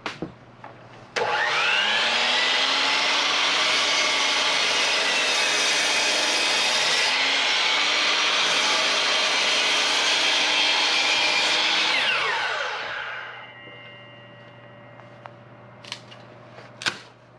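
Electric power saw switched on, its motor spinning up with a rising whine, running steadily for about ten seconds while cutting a rotten section off a piece of red oak, then winding down with a falling pitch after it is switched off.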